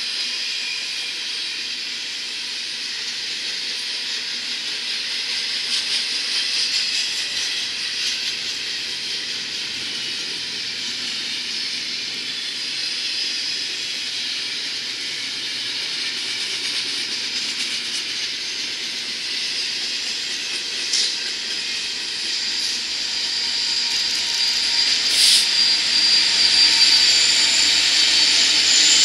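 Double-stack container cars rolling past: a steady rushing hiss of steel wheels on rail. It grows louder over the last few seconds as the rear distributed-power locomotive comes by, with a thin high squeal and a sharp click near the end.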